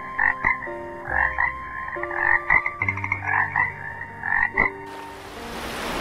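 Toads croaking: a run of short, repeated calls, about two a second, that stops a little before the end. A steady hiss comes in near the end.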